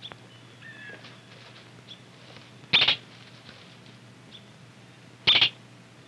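Two short, high, sharp animal calls about two and a half seconds apart, over faint scattered bird chirps.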